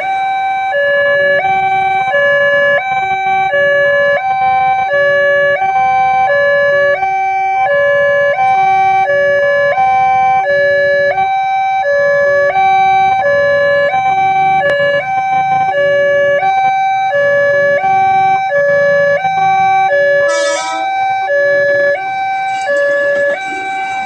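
Railway level-crossing warning siren sounding continuously, a loud electronic two-tone alarm that alternates between a high and a low note, each held a little under a second. Underneath, a lower tone repeats out of step with it, a second crossing alarm sounding at the same time. A brief hiss-like burst comes near the end.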